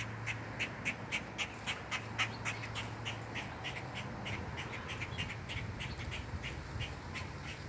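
Starling parents giving repeated short, sharp alarm calls, about three a second, fading in the second half: a sign of a snake raiding their nest. A steady low hum runs underneath.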